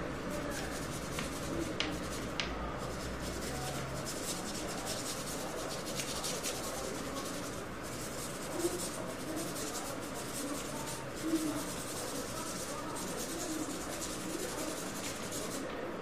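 Paintbrush bristles scrubbed back and forth across drawing paper in many short dry-brush strokes, a scratchy rubbing hiss that stops shortly before the end.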